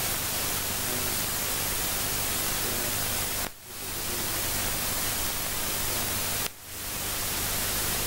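Steady hiss and low hum from old camcorder videotape audio, with no clear sound of its own. It drops out briefly twice, about three and a half and six and a half seconds in, where the recording cuts.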